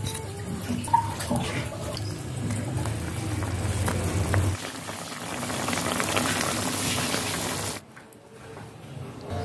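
A pot of soup broth boiling, bubbling steadily, the sound dropping off sharply shortly before the end.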